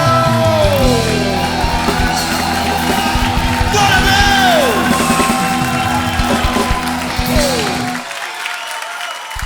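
A live gospel rock band plays its closing outro: sustained chords and drums, with wordless vocal cries that slide down in pitch. The band cuts off about eight seconds in, leaving crowd noise as the audience begins to react.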